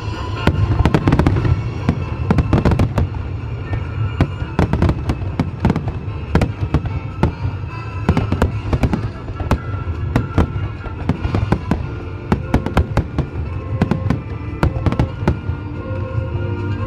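Fireworks going off in a dense, irregular string of bangs and crackles, with music playing along throughout.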